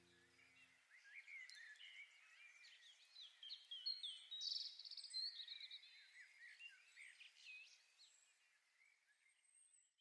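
Faint birdsong from several small birds: many short chirps and quick trills overlapping, thinning out near the end. The tail of a backing music track dies away in the first second.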